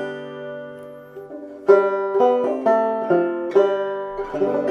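Five-string banjo played clawhammer style: a few notes left to ring and fade, then from just under two seconds in a quick phrase of plucked notes, a drop-thumb pattern on the 1st and 2nd strings.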